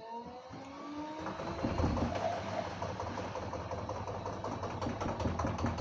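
LG WD-1054FB washing machine's motor whining up in pitch as the drum speeds up. About a second and a half in it turns to a louder rumble with fast, rhythmic knocking as the drum spins faster.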